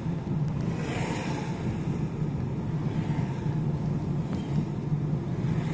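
Steady engine and road noise heard from inside a moving car, with a brief rise in hiss about a second in.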